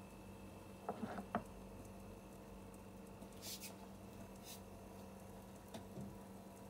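Faint handling of a ceramic plate over a steady low room hum: a quick cluster of small clicks and knocks about a second in, then two short rustles and a few faint ticks.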